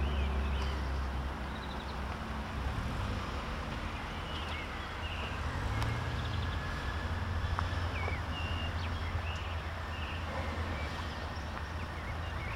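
Outdoor ambience: a steady low rumble with short bird chirps now and then.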